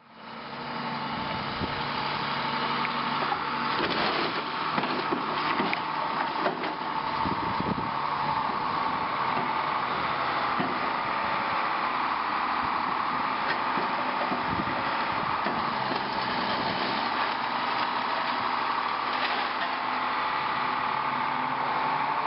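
An engine running steadily, with irregular knocks and clatter over it during roughly the first eight seconds.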